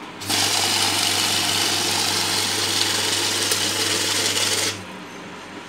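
Godrej Count Matic currency counting machine running as it feeds a stack of ten-rupee notes through and counts them. A steady rushing whir over a low motor hum starts just after the notes are set in and stops abruptly about four and a half seconds later, once the stack has run through.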